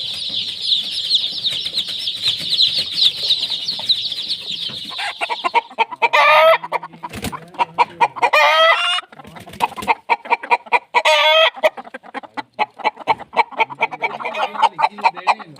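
A crowd of chicks peeping continuously, giving way about five seconds in to Golden Misri hens clucking and cackling in short repeated calls over one another.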